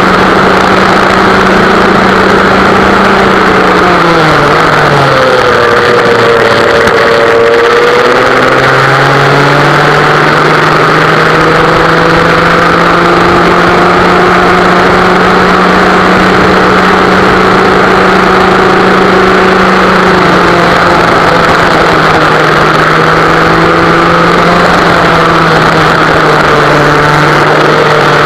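West Bend two-stroke kart engine running hard on a lap. Its pitch drops as the kart slows for a corner about five seconds in, climbs again from about nine seconds, then dips briefly twice more, around twenty seconds and near the end.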